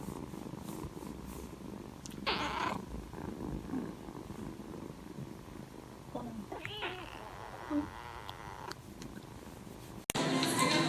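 A domestic cat purring steadily up close, with a brief breathy rush about two seconds in and a short whiny call that rises and falls around six to seven seconds in. Music starts abruptly near the end.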